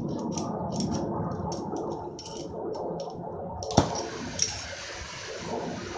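Oxy-fuel torch flame burning with a steady rush and a run of crackling ticks, heating a ball of refractory crucible mix. A sharp pop comes nearly four seconds in, followed by a steady, higher hiss.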